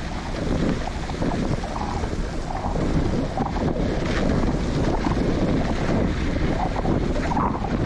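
Steady wind noise buffeting the microphone of a camera on a moving bicycle, a rough low rumble from the rushing air.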